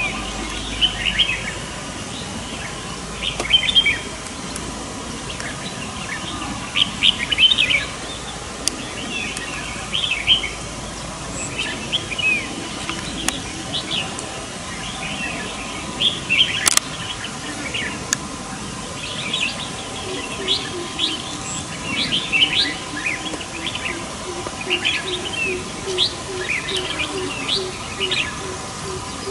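Several red-whiskered bulbuls calling back and forth in short, quick, chattering phrases. From about twenty seconds in, a faint low note repeats rapidly underneath.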